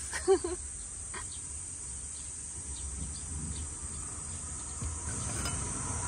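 Insects trilling steadily in a high-pitched chorus, over a low rumble of road traffic that swells near the end.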